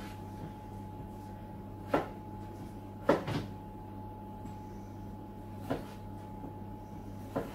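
A chef's knife chopping potatoes on a wooden chopping board: about five irregular knocks as the blade cuts through and hits the board. The loudest are two close together about three seconds in.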